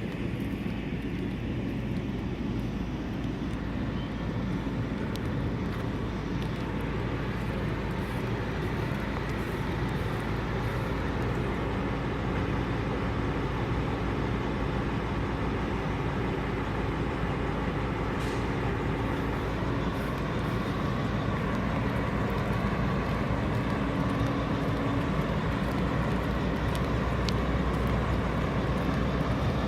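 Car driving: steady engine and road noise heard from inside the cabin.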